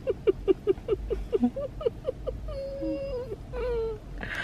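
Puppy whimpering: a run of short squeaky whines, about three a second, then two longer drawn-out whines near the end.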